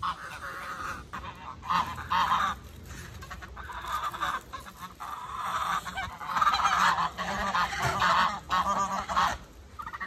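A small flock of domestic geese honking over and over, several birds calling at once, loudest in the second half.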